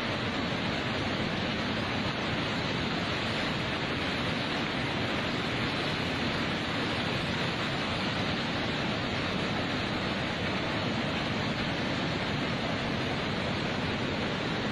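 A river in flood rushing past, a steady, unbroken noise of fast, churning water.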